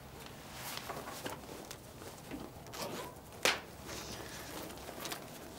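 Fabric rustling and a zip as clothing or a bag is handled, with scattered light clicks and one sharp click about three and a half seconds in.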